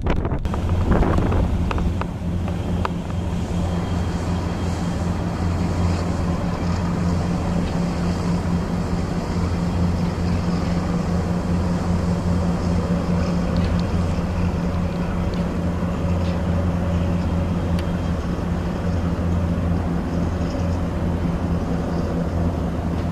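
Engines of the high-speed catamaran ferry Flying Cat 3 running under way, a steady low drone with a deep hum. Wind buffets the microphone briefly in the first couple of seconds.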